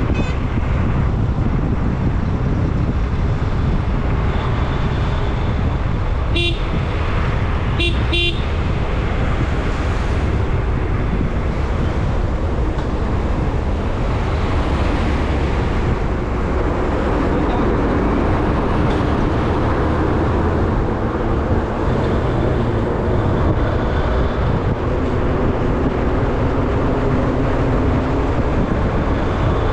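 Steady road and wind noise of a vehicle travelling along a highway. Short horn toots sound about six seconds in and twice more in quick succession about two seconds later.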